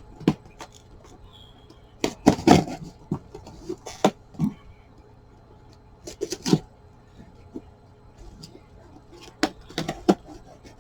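A cardboard box being opened by hand: short bursts of tearing and rustling as thread-reinforced packing tape is pulled off and the flaps are worked open, with small clicks and scrapes in between.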